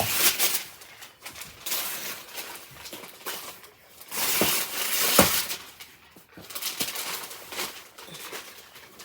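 Gift wrapping paper being torn and crumpled as a present is unwrapped: irregular rustling and ripping, loudest about four to five seconds in.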